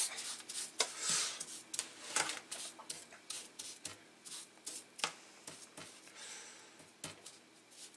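Metal spoon scooping and spreading coarse salt over mullet roe in a plastic tub, salting it further for curing: irregular crunching of salt grains with light clicks and scrapes of the spoon.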